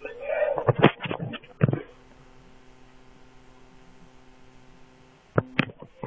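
Muffled, irregular sounds for the first two seconds, then a faint steady electrical hum, broken by two sharp knocks near the end.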